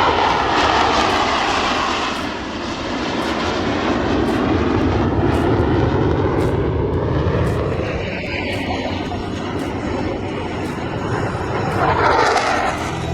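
Airplane engine noise as aircraft fly past, a continuous roar whose pitch sweeps as they pass, swelling again near the end.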